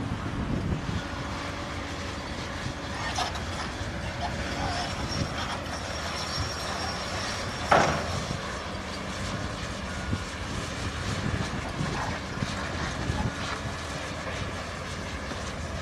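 Heavy machinery running with a steady low rumble, and one sharp clank about halfway through.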